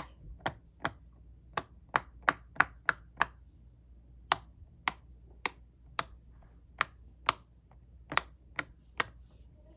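Bubbles of small silicone push-pop fidget toys pressed one by one with a fingertip: a string of about eighteen sharp pops, two or three a second, with short pauses between runs.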